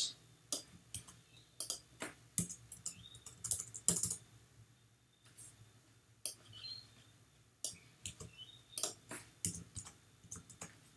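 Typing on a computer keyboard: irregular runs of keystroke clicks, with a pause of a second or two in the middle.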